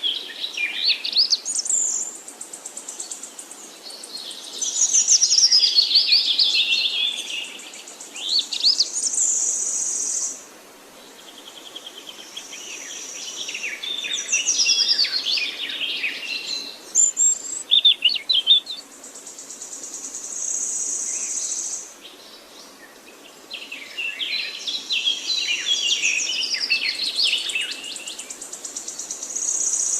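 Several songbirds singing in a forest, with phrases of quick chirps, trills and sweeping notes in bouts that pause briefly about every few seconds. A steady high-pitched trill or buzz comes and goes behind them.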